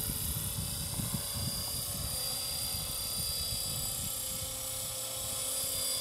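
Radio-controlled model helicopter with a four-blade main rotor flying at about 1400 rpm head speed: a steady high whine from the drive over the rotor's uneven low rumble.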